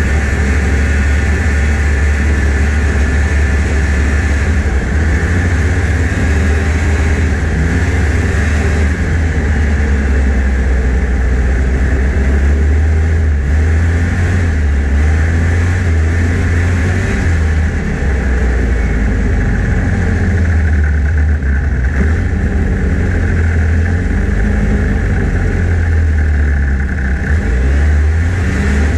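1989 Yamaha Phazer snowmobile's two-stroke engine running steadily at about half throttle while the sled travels across snow, its pitch wavering slightly with no big revs or drops.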